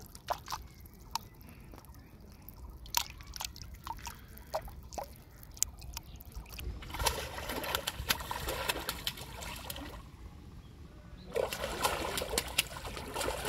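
Water splashing and dripping as a hooked fish struggles at the surface and jerks the fishing float. Scattered drips and small splashes at first, then steadier splashing from about halfway, a brief lull, and splashing again near the end.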